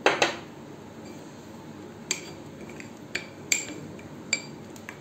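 Steel spoon stirring gram flour and water into a batter in a small glass bowl, clinking against the glass: a loud clink at the start, then four more sharp clinks spread over the following seconds.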